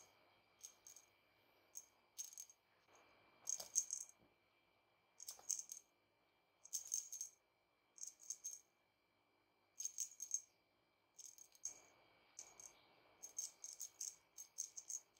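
Faint small jingle bell rattling in short, irregular bursts, about one every second or so, over a faint steady high-pitched hum.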